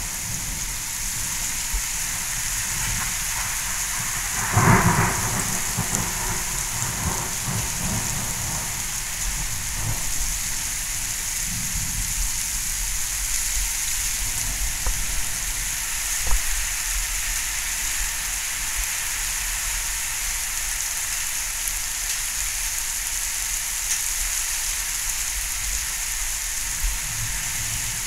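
Heavy rain pouring down steadily. About four and a half seconds in, a thunderclap breaks loudly, then rumbles on for several seconds.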